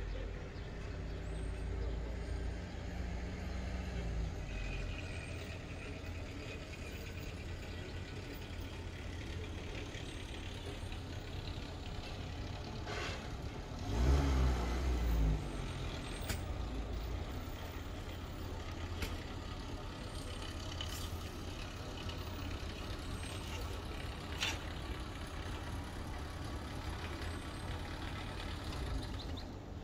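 Road traffic with a steady low engine rumble; a louder vehicle passes about fourteen seconds in. A few sharp clicks are scattered through.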